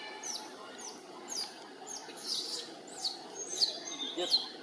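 Baby long-tailed macaque crying: a run of shrill, falling squeals, about two a second, growing louder toward the end.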